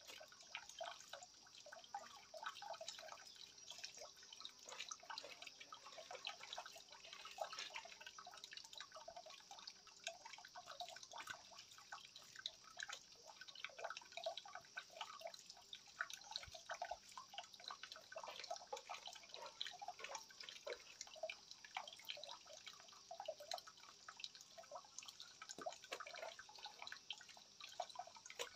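Faint water dripping and trickling: a steady run of small, irregular drops with no pause.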